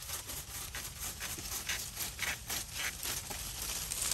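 Leaves and twigs rustling in a string of irregular shakes as a tree branch is pulled down by hand, loudest around the middle and near the end.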